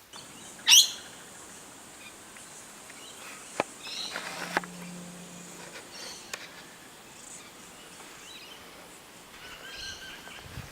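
Birds calling outdoors, with one very loud, sharp call sweeping down in pitch about a second in and shorter warbled calls later, over a steady high hiss.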